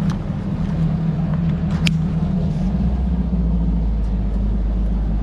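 Bass boat's outboard motor idling with a steady low hum, and a single sharp click a little under two seconds in.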